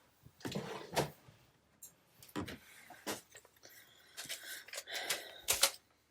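Scrapbook paper being handled and cut: rustling with a few sharp clicks spread through, the loudest pair near the end.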